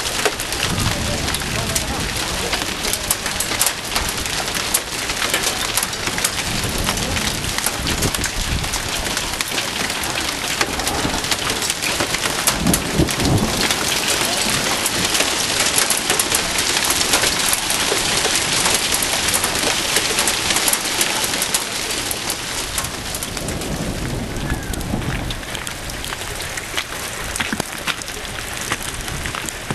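Hail and heavy rain pelting down: a dense, continuous clatter of many small impacts, heaviest around the middle and easing somewhat near the end.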